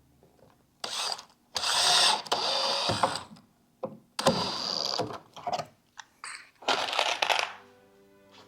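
Drill driving pocket screws into a wooden cabinet panel with a square bit, in four separate runs of about a second each, the second the longest and loudest.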